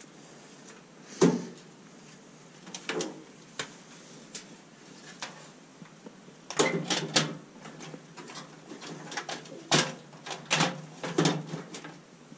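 Clicks and knocks of parts and tools being handled during a washing machine repair, coming in short irregular clusters with the busiest stretch about halfway through.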